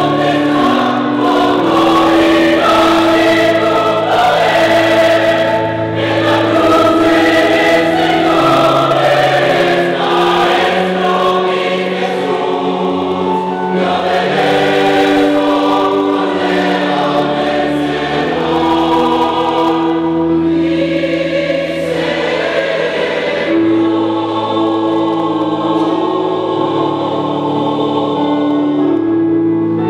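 Large mixed choir of men's and women's voices singing a sacred choral piece in held chords.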